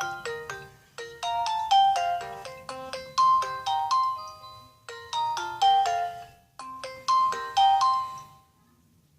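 A Nokia 216 ringtone melody played on a Sony Ericsson W595 phone: a quick run of short, ringing notes, each fading out, that stops a little over eight seconds in.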